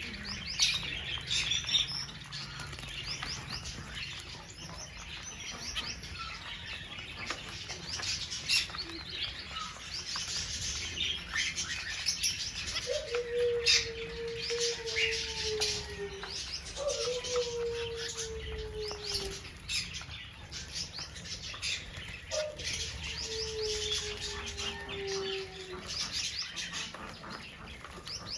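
Many small birds chirping and twittering continuously in quick high notes. About halfway through, three times, a lower drawn-out call sounds, each lasting two to three seconds and sliding slightly downward.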